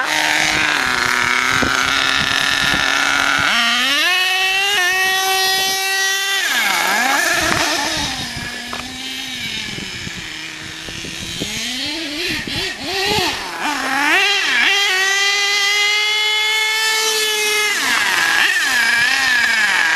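Savage X nitro RC monster truck's K5.9 two-stroke glow engine revving up twice to a high, steady pitch. Each run lasts two to three seconds, and the engine drops back to lower, wavering revs in between.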